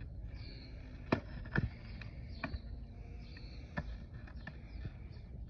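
Skateboard knocking on a concrete sidewalk, the board's tail and wheels striking the ground as a rider snaps at kickflip attempts: about four sharp separate knocks spread over a few seconds, over a low rumble.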